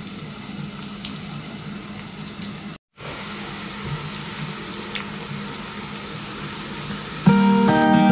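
Onion pakoras deep-frying in hot oil: a steady sizzle with a few faint crackles, broken by a brief gap about three seconds in. Plucked-string background music comes in loudly near the end.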